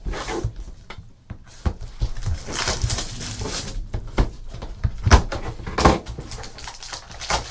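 Sealed trading-card boxes being handled and opened: irregular cardboard knocks and clicks, with a longer stretch of rustling wrapper about three seconds in.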